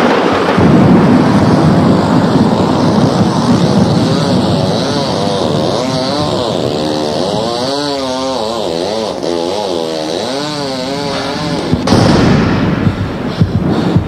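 Spooky Halloween sound effects played from a cassette tape: a loud, rushing, rumbling noise, with a wavering, warbling moan over it from about four seconds in. About twelve seconds in the sound changes abruptly to a coarser noise with clicks.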